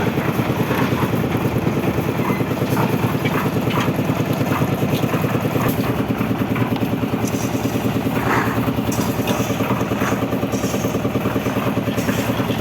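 Site concrete mixer's engine running steadily at constant speed, with a rapid, even pulse, while concrete is mixed for the roof slab.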